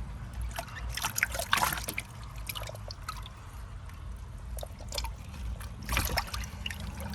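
Water splashing and dripping in short bursts while a koi is handled and turned over. The splashes come in a cluster about a second in, and again near five and six seconds.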